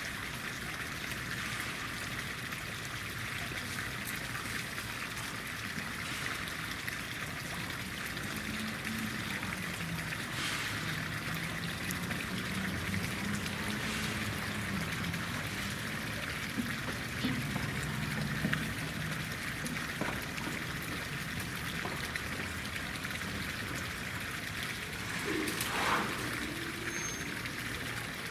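Steady rushing of running water. A faint low wavering tone comes and goes in the middle, and a brief sound rising in pitch comes near the end.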